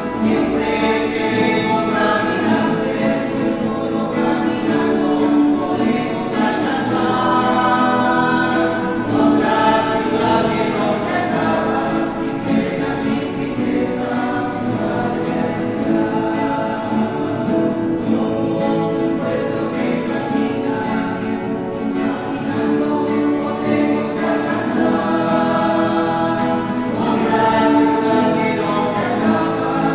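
A choir sings the entrance hymn at the opening of Mass, several voices together in long, continuous phrases.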